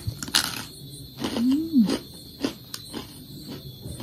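A person eating a crispy, crunchy fried snack: sharp crunching clicks while chewing, and a hummed 'mmm' that rises and then falls about a second and a half in.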